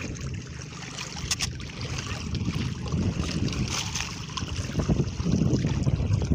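Wind buffeting the microphone over water sloshing against a small outrigger boat's hull and bamboo floats, growing louder over the last second or so.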